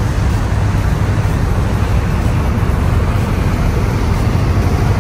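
Steady low engine drone under an even rushing noise.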